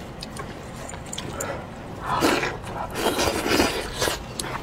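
Close-miked eating sounds: a person chewing and sucking on spiced sheep's head meat, in irregular bursts from about two seconds in, after a quieter start with a few small clicks.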